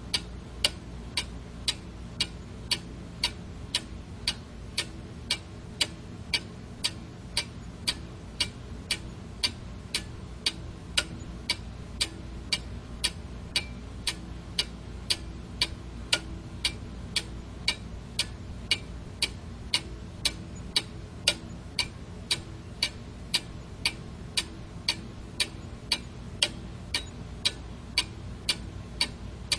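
Quartz analog alarm clock ticking, its second-hand movement giving evenly spaced sharp ticks, over a faint steady low hum.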